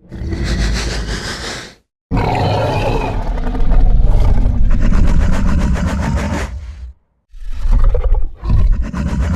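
Fictional dinosaur creature roars made as a sound effect for a nyctosaurus–tyrannosaurus rex hybrid: a short roar, a brief silence, a long roar of about five seconds, then two shorter roars.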